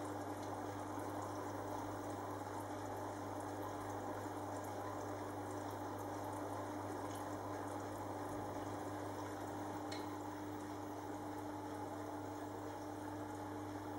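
Aquarium filter running: steady bubbling and trickling water over a constant low electrical hum from the pump.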